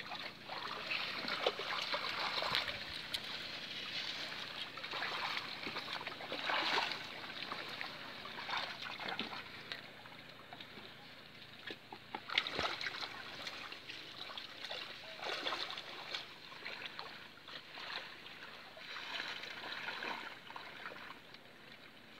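Water splashing and sloshing in irregular bursts as people wade through shallow water among water hyacinth and push a bamboo-poled net through it. Among the splashes are a few sharp clicks, with one sharp knock about halfway through.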